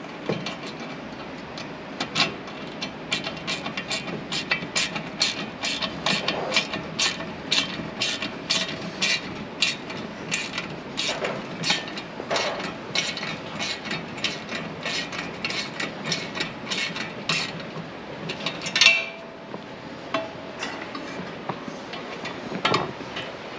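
Ratcheting screwdriver with a 5 mm Allen bit clicking steadily, about two to three clicks a second, as it drives bolts tight into steel armor plates. One louder knock sounds near the end.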